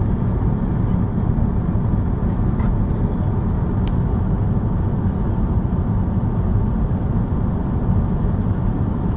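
Steady roar inside the passenger cabin of an Airbus A330-200 in flight: engine and airflow noise heard from a window seat, with a faint click about four seconds in.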